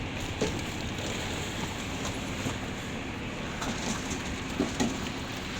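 Concrete-pouring machinery running steadily: a low, even mechanical rumble with light clattering.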